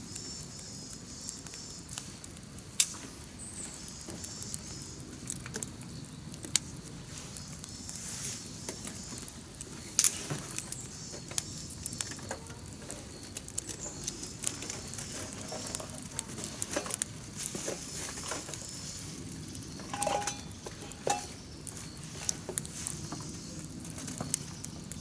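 Campfire crackling: irregular sharp pops and snaps over a steady low hiss, with a few louder cracks, the sharpest about ten seconds in.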